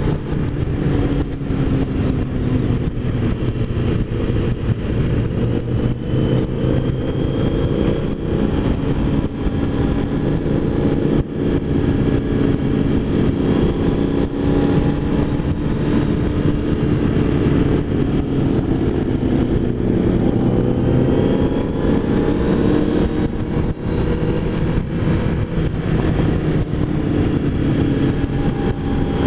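Motorcycle engine running at cruising speed, its pitch rising and falling gently with the throttle through the bends, under a steady rush of wind on the microphone.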